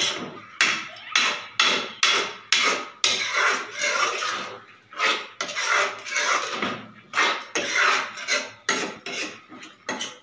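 Steel spoon scraping and knocking against an aluminium kadhai as grated carrots are stirred, in quick strokes about two a second.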